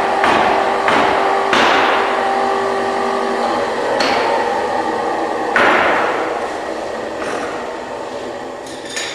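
Hammer blows on a wooden boat keel and stem timber, about seven separate strikes at an irregular pace, each ringing out in a reverberant workshop. A steady hum runs under the first few strikes and stops about three and a half seconds in.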